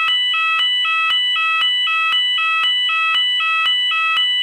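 Electronic fire alarm sounding continuously, alternating between two tones about four times a second.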